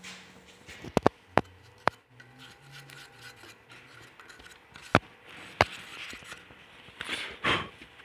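Wooden pieces being handled: several sharp knocks and clicks, a cluster in the first two seconds and two more past the middle, with a brief scrape near the end.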